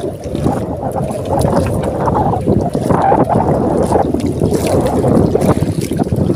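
Steady wind rumbling and buffeting on the microphone, with water lapping against a small outrigger fishing boat, while a gill net is pulled aboard by hand.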